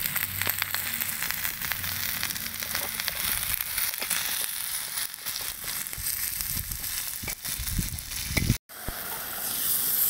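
Diced chicken breast and onions sizzling in melted tail fat in a steel saç pan over a wood fire, a steady hiss dotted with crackling pops. A metal spoon stirs the meat around the pan.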